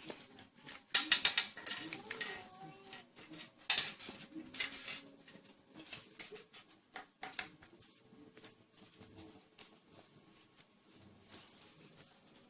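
Hands working open Play-Doh surprise eggs: an irregular run of small clicks, crackles and rustles from squeezing and pulling the dough and handling the toy capsules inside, busiest in the first few seconds.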